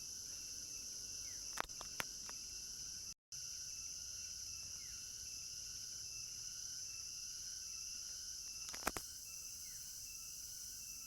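Steady high-pitched chorus of forest insects, with short, faint falling bird chirps beneath it and a few sharp clicks. The sound drops out completely for a moment about three seconds in.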